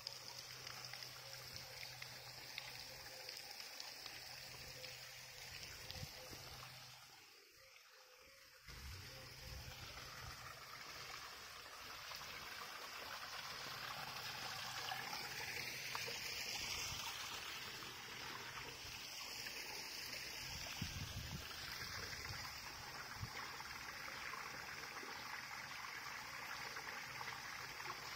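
Water running steadily from a spring outlet in a stone wall and splashing into a small channel, a constant trickling rush that dips briefly about a quarter of the way in and grows louder from about halfway.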